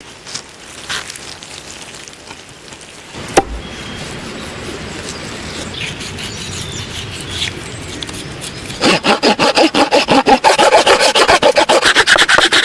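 Hand saw cutting through wood in fast, even back-and-forth strokes, about five a second, which start loudly near the end. Before that come quieter rustling and scraping, and one sharp snap of wood a few seconds in.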